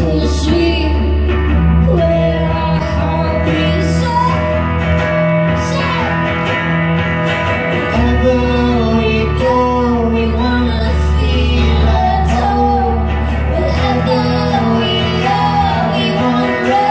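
A live folk-pop duo performing: guitar with sustained low bass notes beneath, and a woman singing over it.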